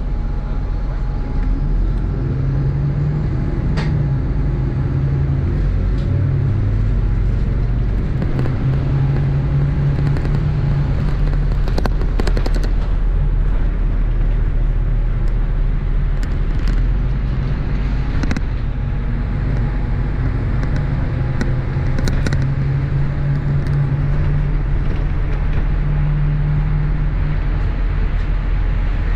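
MAZ-103 city bus heard from inside its cabin while driving: its diesel engine runs with a steady low drone that swells and eases, with a few sharp clicks and knocks from the bus along the way.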